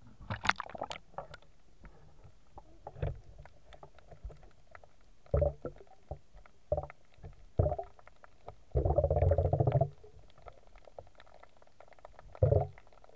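Muffled underwater sound from a camera held under shallow sea water: scattered short bumps and water sloshes, with one rougher, rumbling burst lasting about a second around two-thirds of the way through.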